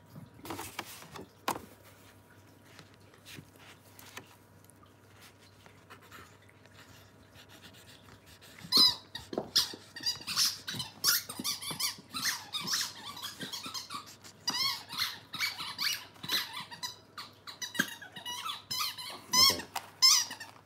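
A Scottish Terrier puppy at play among its toys: a few soft knocks at first, then from about nine seconds in a rapid run of short, high squeaks.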